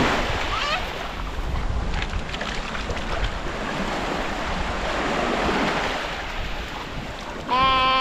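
Small sea waves breaking and washing up over sand, with wind buffeting the microphone. Near the end comes a short, loud, high-pitched cry.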